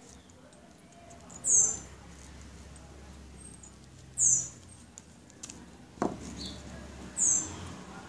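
A small bird's short, high chirp that slides downward, repeated three times about three seconds apart, with a single sharp click about six seconds in.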